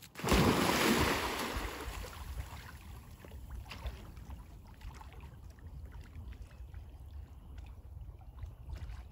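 A dog jumps into a pond with a sudden loud splash just after the start. The splash fades over a couple of seconds into steady, uneven sloshing as the dog paddles and swims.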